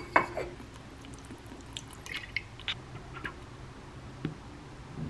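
Faint drips and small clicks as liquid is squeezed from a flip-top squeeze bottle into a glass mug, with a light knock near the end.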